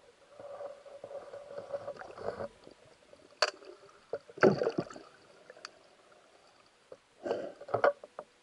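Muffled underwater sounds of a diver moving with a speargun, heard through the submerged camera: faint water rushing with a low hum at first, a sharp click about three and a half seconds in, and two louder water swishes and knocks about four and a half and seven and a half seconds in.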